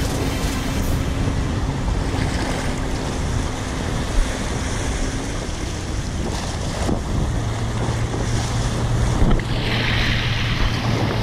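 Wind buffeting the microphone over waves washing at the water's edge, with a faint steady engine hum from a boat in the background.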